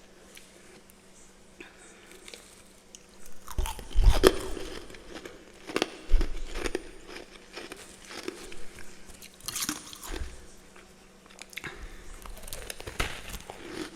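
Close-up biting and chewing of crunchy freezer frost, in irregular bursts of crunches. The first comes about three and a half seconds in.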